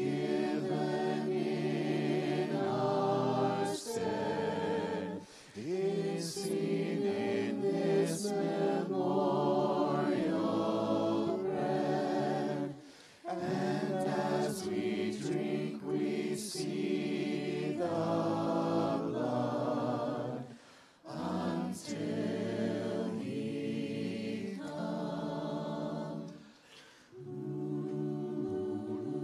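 Voices singing a hymn together in harmony, in long held phrases with a few brief breaks between them.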